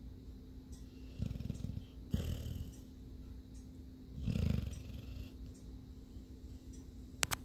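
A sleeping pet snoring: three low snores roughly a second and a half to two seconds apart, over a steady faint hum. A short sharp click comes near the end.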